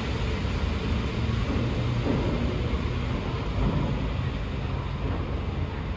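R46 subway train pulling away into the tunnel: a steady low rumble of wheels on the rails and running gear that eases off slightly as it recedes.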